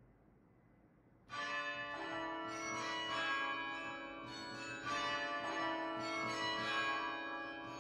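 Bells ringing, starting a little over a second in: a run of struck notes about every half second to second, each ringing on under the next.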